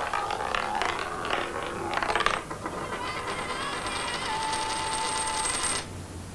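Film soundtrack of sound effects: scattered metallic clicks and clinks, the loudest burst just after two seconds in, then thin steady high tones with a fine rapid rattle that stop abruptly near the end.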